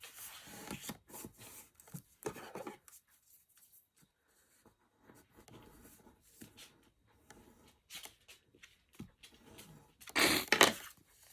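Die-cut card being handled and pressed together, rustling and rubbing in short scattered bursts, with a louder cluster of rustling about ten seconds in.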